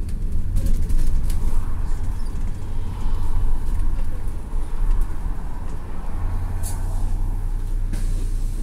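City bus running on the move, heard from inside the cabin: a steady low engine and road rumble with light rattles, and a short hiss about two-thirds of the way through.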